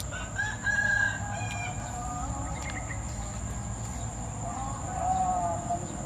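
Rooster crowing: one long held call starting about half a second in, sliding lower at the end.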